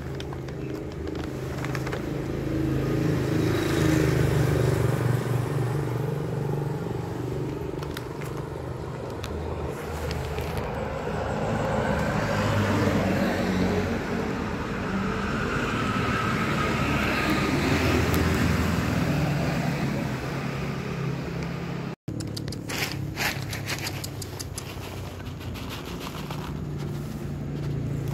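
Street traffic: motor vehicles running past, the low engine rumble swelling and fading several times, with a brief break about two-thirds of the way through.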